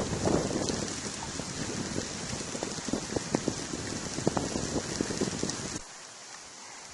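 Blizzard of heavy, wet snow: a steady rushing hiss with scattered crackling ticks, like precipitation striking the microphone and the surroundings. It cuts off suddenly near the end.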